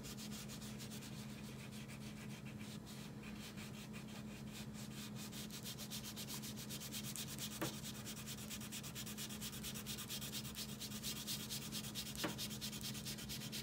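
Crayon rubbing on paper in rapid back-and-forth colouring strokes, a fine steady scratching, over a faint low hum.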